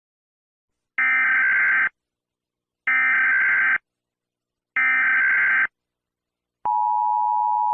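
Emergency Alert System SAME header: three bursts of about a second each of buzzy digital data tones, a second apart. About six and a half seconds in, the steady two-tone EAS attention signal starts. Together they mark the start of an emergency alert message.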